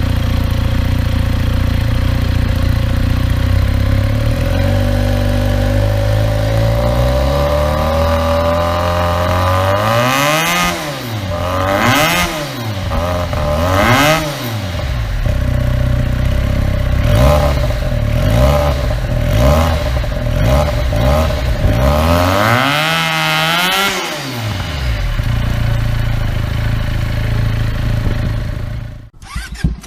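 Sport motorcycle engine idling, then revved through a series of throttle blips, its exhaust note sweeping up and falling back each time. There are several short quick blips and a couple of longer revs before it settles back to idle, and the sound cuts off abruptly near the end.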